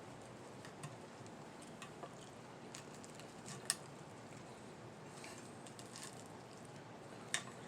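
Quiet eating sounds: soft chewing with scattered light clicks of a utensil against a plate, a sharper click a little past halfway and another near the end.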